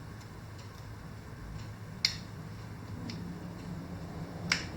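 Two sharp metallic clicks about two and a half seconds apart, with a few fainter ticks, as a brake pad is handled and fitted into a scooter's front brake caliper and hooked over its pin, over a faint steady low hum.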